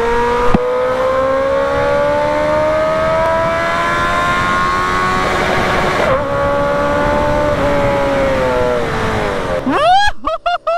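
Suzuki Hayabusa's inline-four engine through a loud aftermarket full-system exhaust, pulling steadily in gear over wind rush: the engine note climbs slowly for about six seconds, holds, then drops as the bike rolls off near the end.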